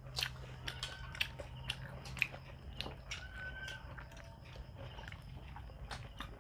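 A person chewing food close to the microphone: a string of short, wet mouth clicks and smacks.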